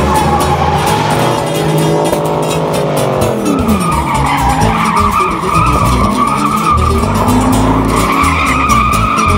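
Truck tires squealing in a wavering high tone while the engine revs, its pitch falling away about three and a half seconds in, with band music underneath.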